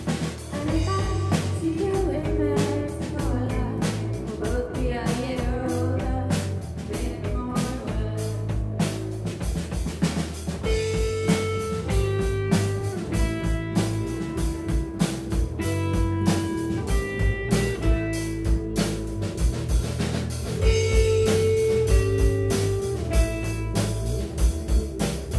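Live rock band playing: electric guitars over a drum kit, with a voice singing in the first part. From about ten seconds in, long held notes step through a repeating melody over the steady drumming.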